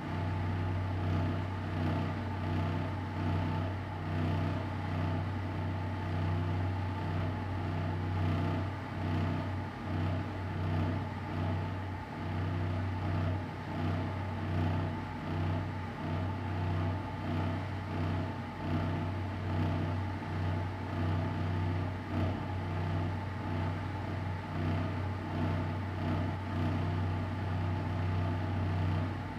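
Empty-room tone: a steady low hum with a faint even hiss of air above it, unchanging throughout.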